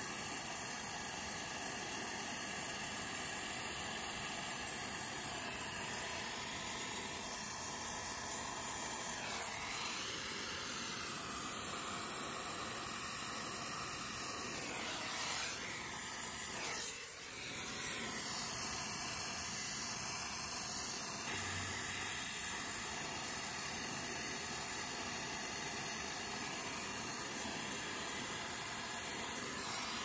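Compact oxy-acetylene torch flame hissing steadily while brazing copper refrigerant line joints, dipping briefly about seventeen seconds in.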